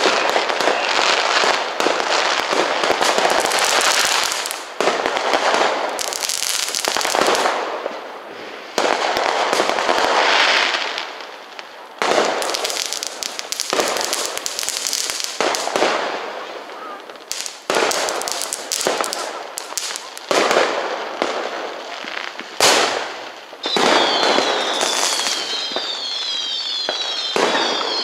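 Fireworks and firecrackers banging and crackling without let-up, loud and coming in waves. Near the end a run of several high falling whistles sounds through the crackle.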